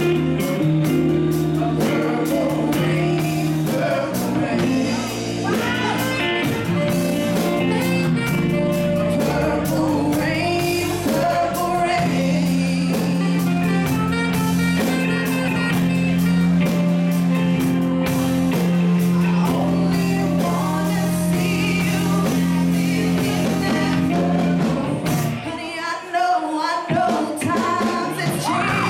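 Live band playing a slow rock ballad: a female singer's voice over sustained electric guitar chords, keyboard and drums. Near the end the bass drops out for a couple of seconds, then the full band comes back in.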